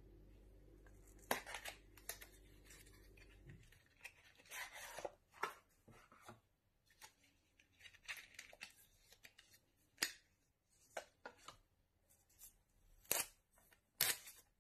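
Packaging being handled during an unboxing: irregular rustling and tearing of paper and plastic, with several sharp clicks and taps.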